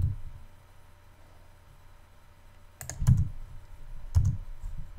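Computer keyboard keystrokes picked up by a desk microphone: a sharp key press right at the start, then a quiet stretch, then a few more key clicks with a low thud about three seconds in and again a little after four seconds.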